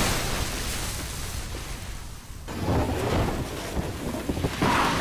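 Cartoon battle sound effects: the low rumble of shell explosions dying away over about two seconds, then a fresh low rumble with a hiss over it rising about halfway through.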